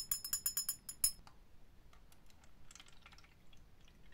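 Glass stirring rod clinking rapidly against the inside of a small glass bottle of liquid, a quick run of ringing clinks, about ten a second, for about the first second, then a few faint light taps.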